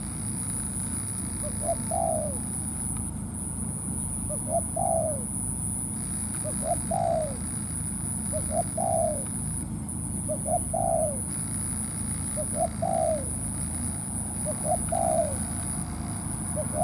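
Spotted dove cooing: a repeated song, two short notes then a longer falling note, about every two seconds, seven or eight times.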